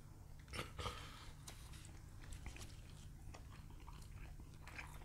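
Faint chewing and mouth sounds, with a few soft smacks about a second in.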